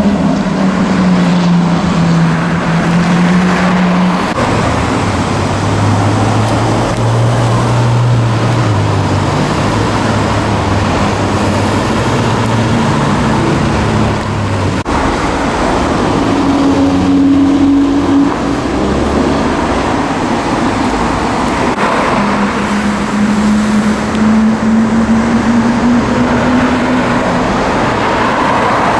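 Several cars' engines passing one after another in street traffic, over steady road and tyre noise. Their engine notes change pitch, and one climbs gradually under acceleration near the end.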